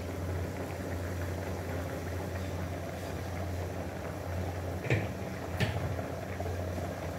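Rice and water just come to the boil in an open pan on a gas stove: a steady bubbling hiss over a constant low hum, with two light clicks about five seconds in.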